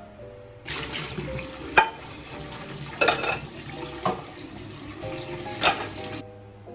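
Kitchen tap running into a sink as dishes are rinsed, with a few sharp knocks of dishware against the sink. The water comes on about a second in and shuts off near the end.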